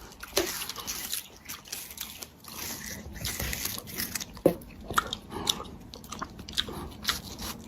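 Close-up chewing with irregular crisp crunches, like something hard being bitten and ground between teeth.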